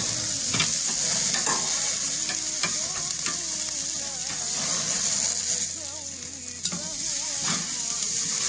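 Chicken sizzling on a barbecue grill, a steady hiss, with a few sharp clicks of metal tongs on the grate as the pieces are turned.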